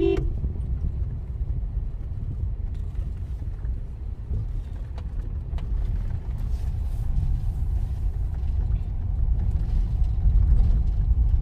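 Steady low rumble of a Toyota car's engine and tyres heard from inside the cabin while it drives slowly, growing a little louder near the end.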